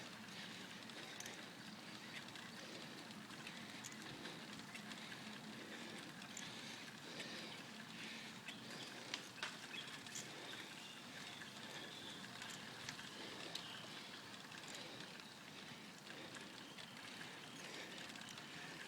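Faint steady noise from a bicycle grinding up a steep road: tyre and riding noise, with a few soft clicks scattered through it.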